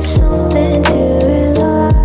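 Background music with a slow beat: held chords over deep kick drums that slide down in pitch, with sharp snare hits.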